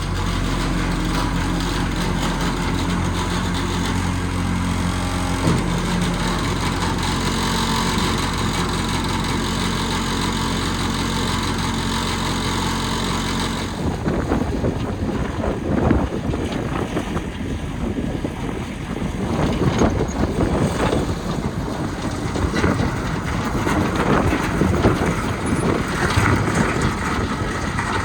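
Case 1845C skid steer's diesel engine running steadily, shifting pitch about five seconds in. After about fourteen seconds the steady engine tone gives way to a rougher, noisier rattle with scattered knocks as the machine is driven on its homemade chain tracks.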